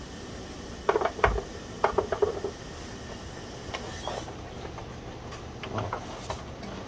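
Clicks and knocks of the Commodore 1571 floppy drive's plastic case parts being handled and fitted together. There are two clusters of quick clicks about one and two seconds in, then scattered lighter taps.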